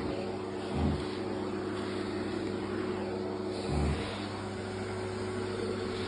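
Pet grooming vacuum running, its motor giving a steady hum with a fixed pitch. Two brief dull thumps come about a second in and just before four seconds.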